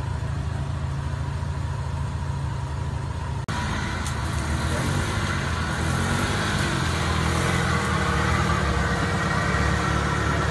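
Jeep Wrangler engines running at a steady low idle; after a break about a third of the way in, a Jeep's engine runs louder as it drives up the trail.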